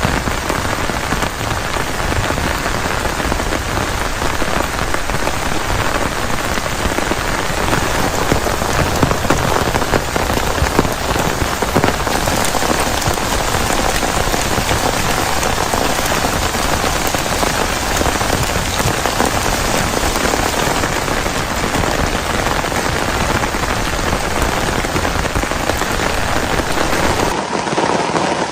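Heavy rain falling, a dense, steady patter of countless drops. About a second before the end the deep rumble underneath drops away.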